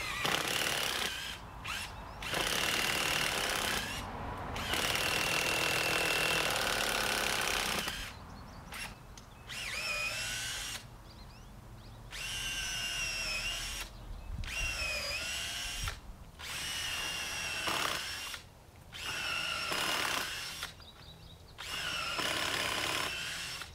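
Cordless drill boring holes into a dead standing tree trunk with a long 6-inch bit. The motor whines in a string of short trigger runs with brief pauses between them, and its pitch sags now and then as the bit loads up in the wood.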